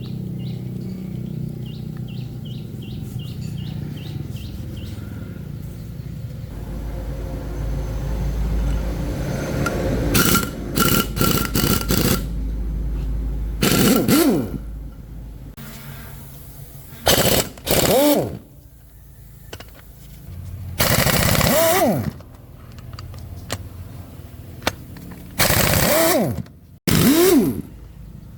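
Pneumatic impact wrench rattling in a series of short bursts, several with a whine that rises and falls as it spins up and stops. A low steady machine hum runs underneath in the first seconds.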